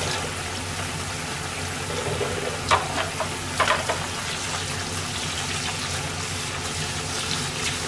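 Tap water running into a stainless steel sink as dishes are washed, with a few sharp clinks of dishware about three seconds in, over the steady sizzle of cutlets deep-frying in oil.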